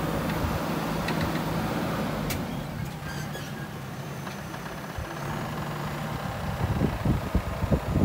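JCB 3DX backhoe loader's diesel engine running under working load while the backhoe digs soil, its note dropping a little near the middle. Near the end a run of irregular low thumps rises over the engine.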